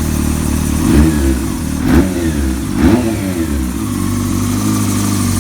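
Honda CBR600 F4i inline-four engine, freshly rebuilt with new connecting-rod and main bearings and in its break-in, idling and blipped three times about a second apart, the revs rising and falling each time before it settles back to a steady idle. It sounds deep and healthy ('bien gordo').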